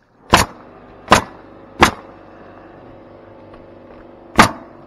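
Pneumatic roofing nailer firing four times, driving nails through a roof vent's metal flange into the shingled deck: three shots about 0.7 s apart, then a pause of over two seconds before a fourth.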